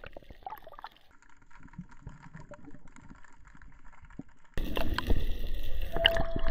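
Faint underwater camera audio of scattered small clicks and crackles. About four and a half seconds in, it cuts abruptly to much louder surface noise of a boat on the water with a low rumble. Near the end a steady tone comes in.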